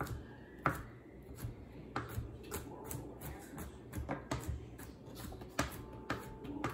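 Kitchen knife chopping garlic cloves on a cutting board: irregular knocks of the blade against the board, a few sharper strikes among lighter taps.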